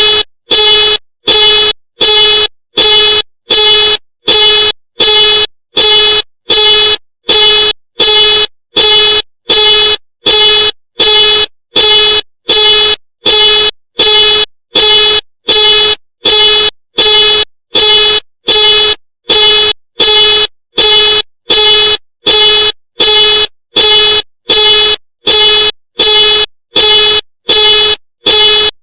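Ford car alarm going off: the car's horn honks over and over in a steady, even rhythm, about three blasts every two seconds. Each blast is the same unchanging tone.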